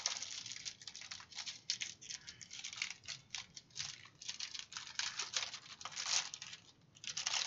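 Clear plastic packaging sleeve crinkling and crackling in a quick, irregular run as hands handle it and work it open around a rolled canvas. There is a brief lull about seven seconds in.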